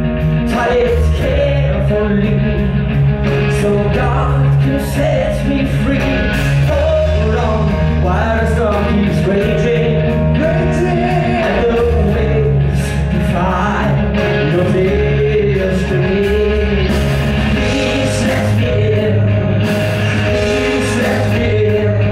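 A rock band playing live: a male voice singing over keyboards from a Nord Stage 2, with electric bass, drums and electric guitar.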